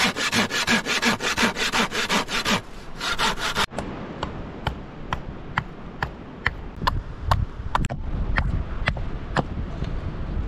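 Hand saw cutting through a thin wooden stick in quick, even strokes, about five a second. After a cut about three and a half seconds in, a small hammer knocks on a piece of wood in sharp single taps, roughly two a second.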